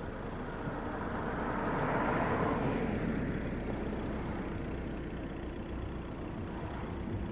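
A road vehicle passing, its noise swelling about two seconds in and then fading, over a steady low rumble.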